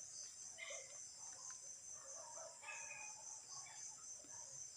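Faint background of insects chirring steadily in a high, pulsing drone, with a few faint, brief bird calls.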